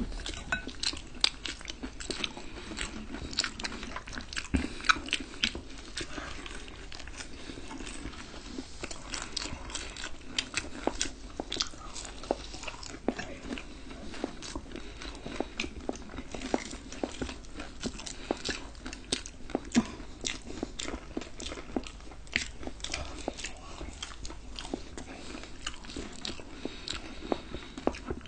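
Close-miked eating: crunching and chewing crispy fried chicken and fries, with frequent short crisp crackles and wet mouth clicks.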